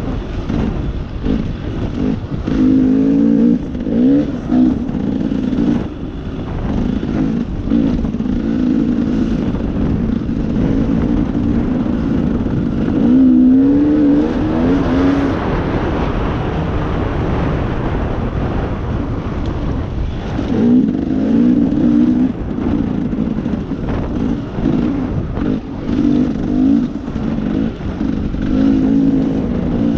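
A vehicle engine running under way with its revs rising and falling, over steady wind and road noise and scattered knocks and rattles.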